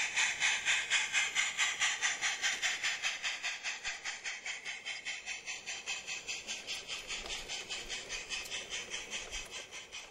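Live-steam model Barclay 0-4-0 tank locomotive pulling away, its exhaust a rapid, even chuffing hiss of about six beats a second that fades steadily as the train draws away.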